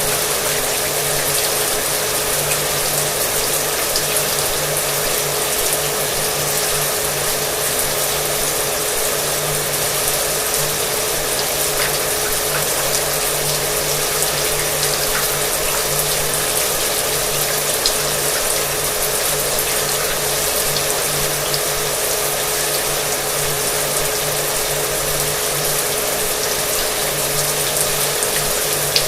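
Shower water spraying steadily, with a hair dryer running underneath it, its motor giving a steady hum.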